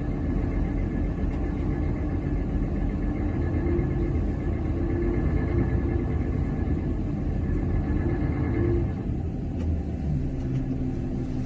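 Heavy truck's diesel engine running hard as the truck tries to pull free of the snow it is stuck in. About nine seconds in, the engine note eases and settles into a steadier, lower tone.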